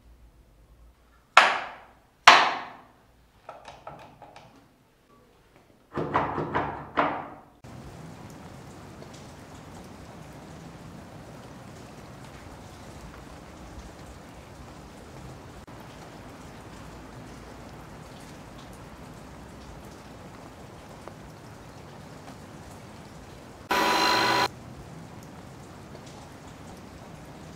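A few sharp wooden knocks and clicks as small carved parts are pressed into place, then steady rain falling from about eight seconds in. Near the end a short, steady beep sounds once over the rain.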